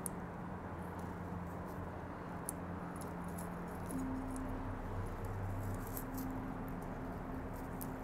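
Scattered light clicks and rustling of metal tweezers plucking dry zelkova leaves off a bonsai forest, over a steady low hum that shifts up in pitch about four seconds in.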